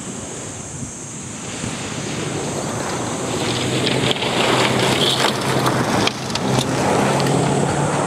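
Rally car on a gravel special stage, its engine growing louder from about two seconds in and staying loud through the second half, with a clatter of loose gravel and stones between about four and seven seconds.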